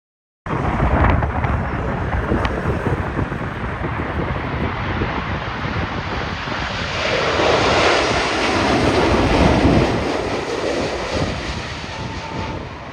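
Jet airliner's engines on landing approach, swelling loudest about seven to ten seconds in as it passes, with strong wind rumbling on the microphone throughout.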